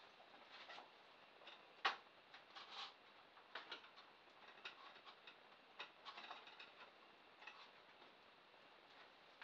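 Faint, scattered clicks and light knocks of hands handling a small polystyrene model boat and its plastic jet pipe while the pipe is swapped over, with the sharpest click about two seconds in.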